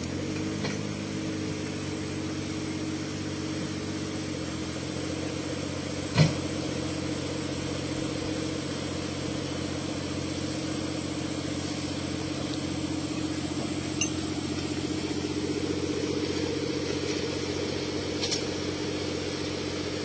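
Off-road buggy's engine idling steadily, with a few short sharp knocks, the loudest about six seconds in.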